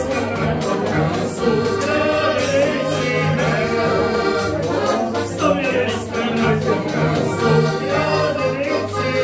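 Czech folk music: a diatonic button accordion (heligonka) and a clarinet play while a man sings in long, wavering held notes. A bumbas, a carved pole with a small drum and jingles, is struck in time.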